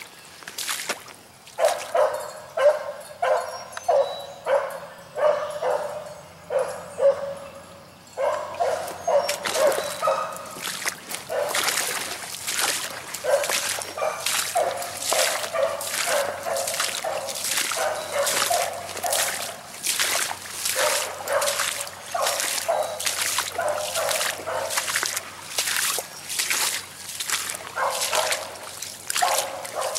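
A lone rabbit-hunting dog baying over and over as it runs a rabbit's scent trail. The calls come about one to two a second, sparser at first and near-continuous from about a quarter of the way in.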